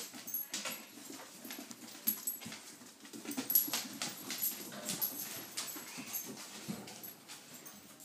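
Airedale terriers, an adult and puppies, making dog sounds amid a run of irregular clicks and scuffles as they move about.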